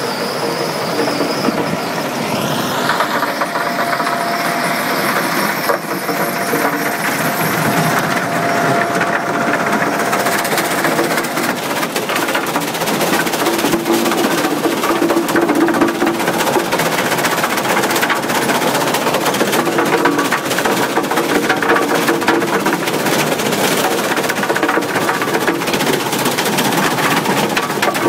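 Powerscreen Warrior 1800 mobile screener running while screening topsoil: engine and vibrating screen deck in a steady mechanical din, with soil clods and stones rattling on the woven wire mesh. The rattling grows denser about ten seconds in.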